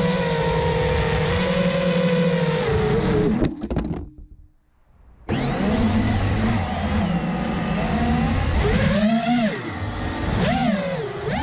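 Brushless motors and propellers of a 5-inch FPV freestyle quadcopter (2207 2522 kv motors, Dal 5046 props) whining under throttle. The sound cuts out about three and a half seconds in and comes back over a second later, then dips and rises in pitch several times with quick throttle changes near the end.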